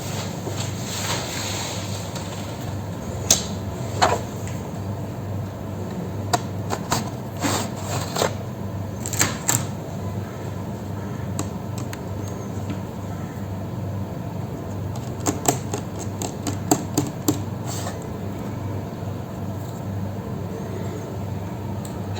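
Scattered sharp clicks and taps of a laptop's plastic and metal parts being handled during disassembly, coming in small clusters over a steady low hum.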